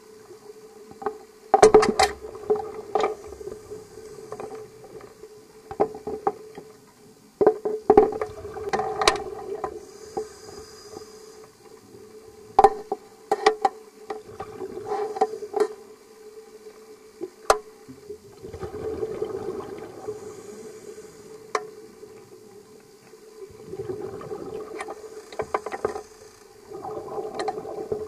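Underwater sound picked up by a scuba diver's camera: rushes of the diver's exhaled regulator bubbles, over a steady hum, with many scattered sharp clicks and knocks.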